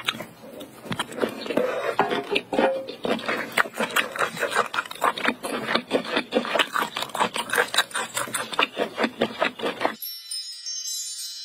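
Close-miked chewing of spicy braised octopus: rapid, irregular wet clicks and squelches of mouth and food. About ten seconds in, the chewing cuts off and a short jingle of chimes and bells starts.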